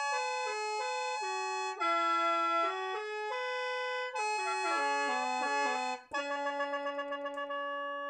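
Khaen, the Lao bamboo free-reed mouth organ, playing a quick melody over a held drone. About six seconds in it breaks off and settles on a sustained chord with a fluttering pulse.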